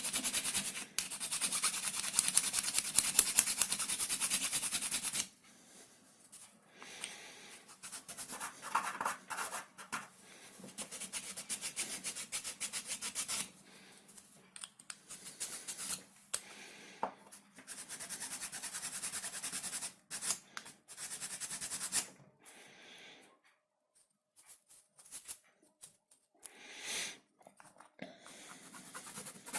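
Abrasive rubbing and scraping on plywood, like hand sanding or filing, in several separate stretches. The first runs about five seconds; the later ones are shorter, with abrupt stops and quiet gaps between them.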